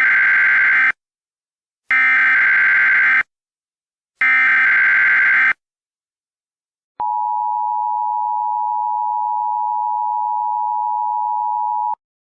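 Emergency Alert System tones: three harsh SAME header data bursts, each about a second long and a second apart, then, after a short pause, the steady two-tone EAS attention signal held for about five seconds before cutting off. They mark the start of a broadcast emergency alert.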